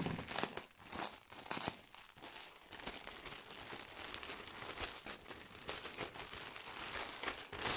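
Clear plastic bag crinkling and rustling as it is handled, with the loudest crackles in about the first two seconds.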